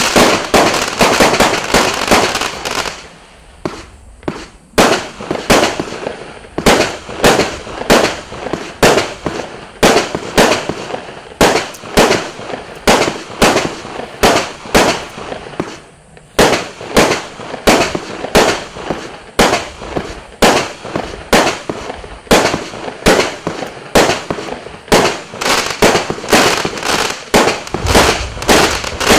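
Klasek C25620F/C consumer fireworks battery firing shot after shot, about two sharp reports a second, with brief lulls about three seconds in and again about halfway through.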